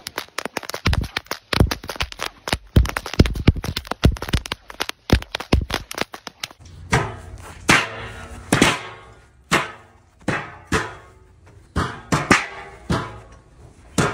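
Whips cracking in quick succession, several sharp cracks a second. About six and a half seconds in, folding chairs start clashing together, a ringing clang roughly every second.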